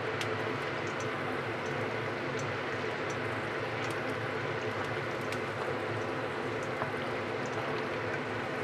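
Pot of chicken soup boiling steadily on the stove: a continuous bubbling hiss with a few faint ticks scattered through it.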